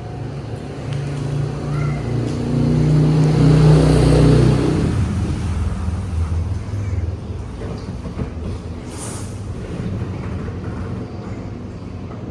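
A motor vehicle's engine rumbling as it passes, loudest about four seconds in, then fading into a steady low traffic rumble.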